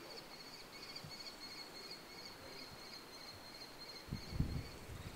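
Faint outdoor summer ambience with a steady, high-pitched chirring throughout, and a few low thumps about four seconds in.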